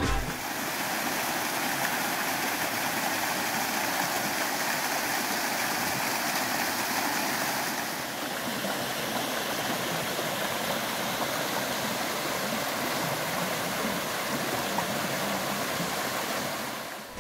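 Steady rushing water, an even hiss with a brief dip about eight seconds in.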